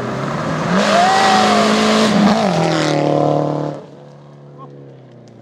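Rally car engine revving hard as the car passes, its pitch climbing about a second in, with a loud rush of tyre and gravel noise. Near the middle the revs drop, and the sound falls away sharply, leaving a quieter steady engine note.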